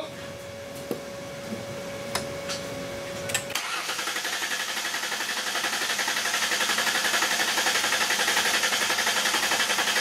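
Ford 4.0 L V6 cranking on the starter for a relative compression test by ear, starting about three and a half seconds in, with a few faint ticks before it. The cranking rhythm is fast and even, with no cylinder sounding weak, so compression is not behind the number 6 misfire.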